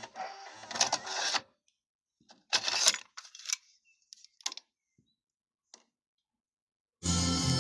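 Clicks and brief mechanical whirs from the Pioneer KEH-P4530R's motorised soft-touch cassette mechanism, with near silence between them, before music from the deck starts again about seven seconds in.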